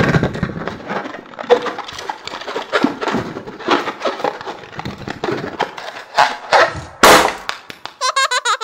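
Hands twisting and cracking open a hollow plastic lollipop-shaped ball: a continuous run of crackling and snapping, with one louder snap about seven seconds in. A short warbling cartoon sound effect starts near the end.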